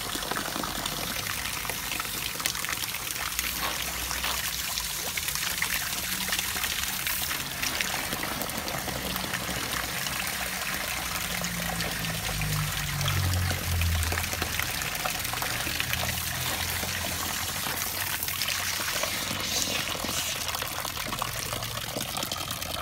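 Garden hose spray nozzle hissing steadily as it jets water into the condenser coils of a TCL window air conditioner, rinsing the dish soap off, with the rinse water splashing and streaming down from the unit.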